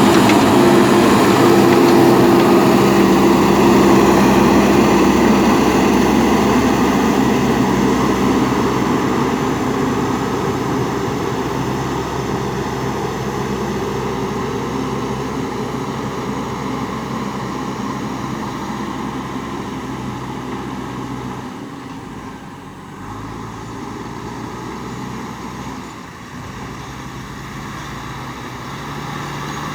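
JCB backhoe loader's diesel engine running steadily under working load. It grows gradually quieter and briefly drops twice in the last third.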